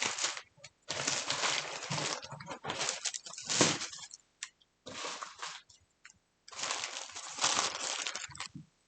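Plastic packaging of a mystery bag crinkling and rustling in irregular bursts as it is handled, with a few short pauses.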